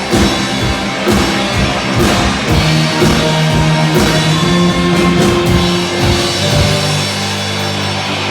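Rock band playing live on drum kit and guitar, the drums hitting a steady beat under held chords. About seven seconds in the drumming stops and a chord rings on.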